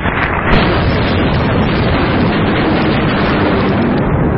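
Thunder from a close lightning strike: a sharp crack about half a second in, then a loud, continuous rumble.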